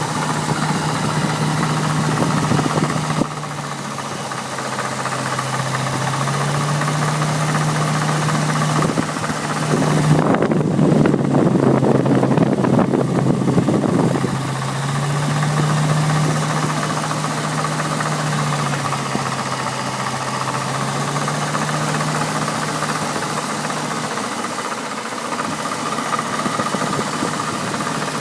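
BMW N62B48 4.8-litre V8 engine idling steadily with the clicking noise that the owner puts down to a failed water pump. About ten seconds in, a louder rushing noise comes in for some four seconds.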